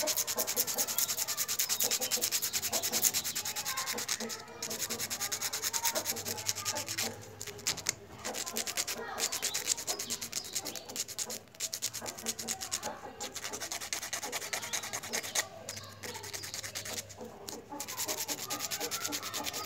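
150-grit sandpaper rubbed in quick back-and-forth strokes against a rooster's toenail, filing the nail down. A few brief pauses break the run of strokes.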